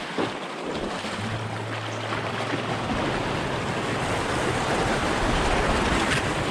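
White water rushing through a small river weir's chute and the rapids below it, growing steadily louder as the canoe runs through. There are two brief knocks right at the start.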